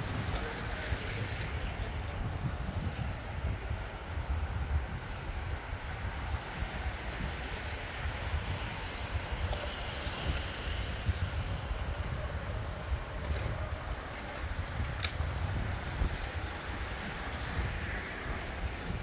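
Wind buffeting the microphone, an uneven low rumble, over a faint outdoor hiss, with a single sharp tick about fifteen seconds in.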